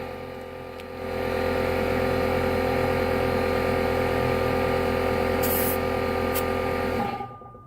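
Electric air compressor running steadily with air hissing through the hose into a motorcycle tire being inflated, cutting off abruptly about seven seconds in.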